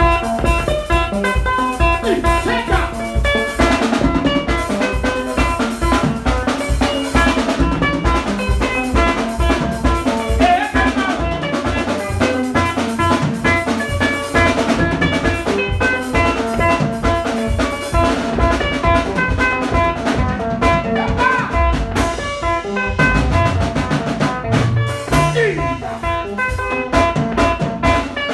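A live band playing instrumental music: a drum kit keeps a steady beat under interlocking electric guitar lines.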